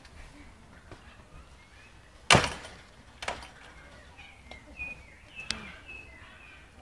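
Small birds chirping faintly and intermittently, with one sharp loud knock a little over two seconds in and a few softer clicks later.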